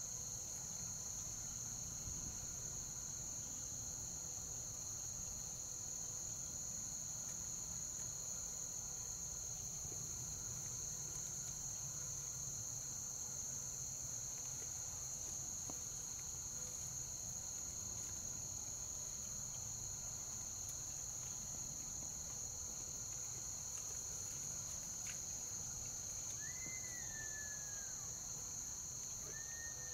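Steady, unbroken insect chorus, a cricket-like high drone. Two short falling whistled calls come near the end.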